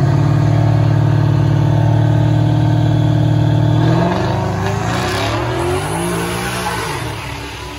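Ford Mustang's engine held at steady high revs on the start line, then launching about four seconds in. The pitch climbs in rising sweeps as it accelerates, and the sound fades as the car pulls away down the strip.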